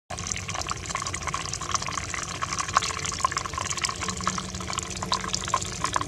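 Small rock waterfall fountain: water spilling over a stone lip and splashing into a shallow pool, a steady trickle dotted with many small irregular splashes and drips.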